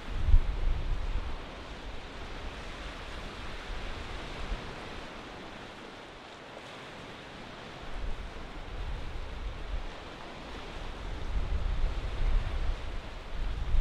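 Strong wind: a steady rushing hiss, with gusts buffeting the microphone in low rumbles during the first second or so and again from about eight seconds on.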